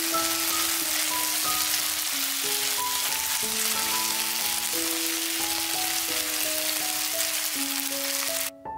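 Vegetables frying in a pan, a steady sizzle that cuts off suddenly near the end, with gentle piano music playing over it.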